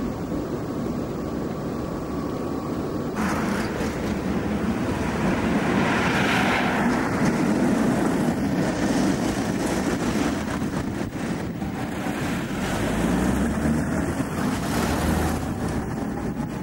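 City street traffic: a Tatra T3 tram runs past close by, its noise swelling about a third of the way in, with road vehicles passing later. The sound changes abruptly about three seconds in.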